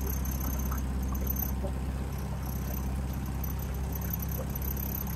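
Honda four-stroke outboard motor running steadily, driving a small boat along.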